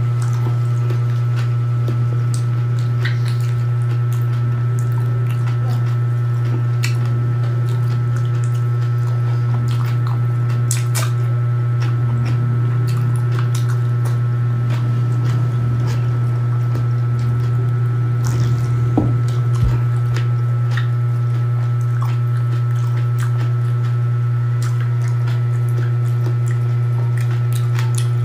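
Wet eating sounds: fingers picking through vinegary raw fish (kinilaw) and chewing, with soft squishes and small clicks, over a loud steady low hum. A louder thump comes about two-thirds of the way in.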